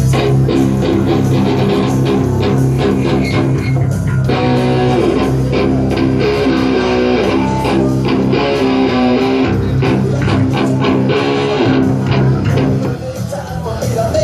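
Rock music with electric guitar and bass guitar playing.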